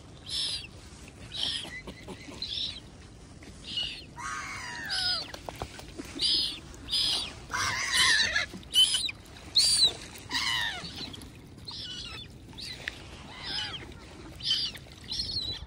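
Birds calling: short high calls repeated about once a second, with a few lower, longer calls mixed in.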